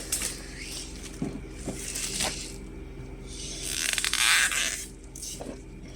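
Plastic shrink wrap being pulled and torn off a toy box, crinkling and rasping in short bursts, with the loudest longer rip about four seconds in.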